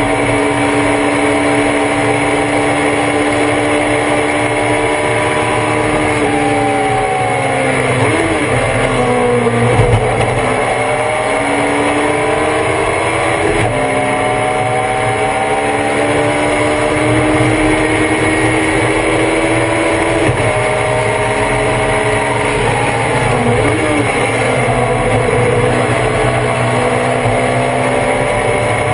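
Race car engine heard from on board at full racing pace: the pitch climbs steadily under hard acceleration, drops at an upshift, then falls with quick throttle blips on downshifts, twice.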